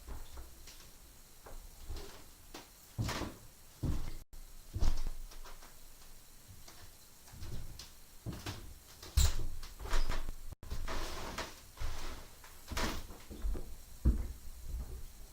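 A series of irregular knocks and clunks, hard objects being handled and set down, some louder than others.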